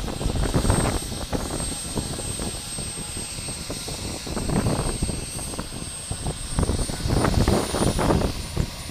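Bell UH-1H Huey's turboshaft engine and rotor running on the ground, a thin high turbine whine that edges up in pitch about two-thirds of the way through. Wind gusts on the microphone come and go over it.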